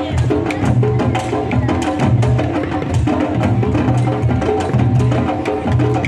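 Candombe drum ensemble playing a steady, dense rhythm, with sticks cracking on the drum shells and hands and sticks striking the heads, over a recorded backing track carrying bass and melody.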